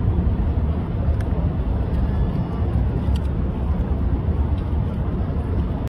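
Steady low outdoor rumble with no distinct source, cutting off abruptly near the end.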